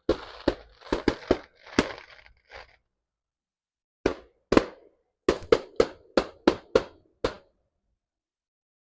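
Fireworks going off: a series of sharp bangs, the first few spread out, then a quick volley of about eight bangs in the second half.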